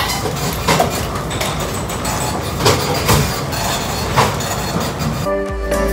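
Commercial kitchen noise: the steady rush of the extraction hood and cooking line, with clinks and clatters of pans and utensils a few times. Near the end the kitchen noise cuts off and background music comes in.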